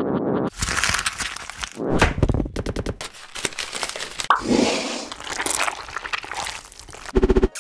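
A red onion being cut and diced: a string of crunchy cracks and knocks from a knife, with a quick run of rapid chops a little before the middle and another just before the end.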